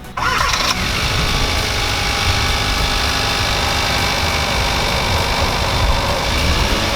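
A 2016 Hyundai Veloster Turbo's 1.6-litre turbocharged four-cylinder starting up, catching suddenly just after the start with a brief higher-pitched whir, then idling steadily on its factory intake.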